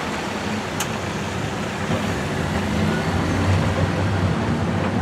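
Open-air zoo tram running, heard from on board: a steady engine drone with road and wind noise. One brief click about a second in.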